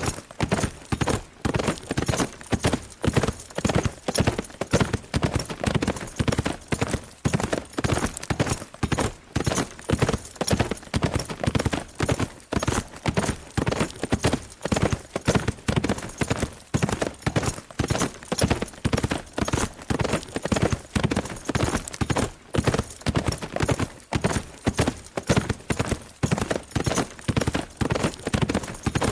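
A horse galloping fast at a steady pace: clusters of hoofbeats repeat in an even rhythm.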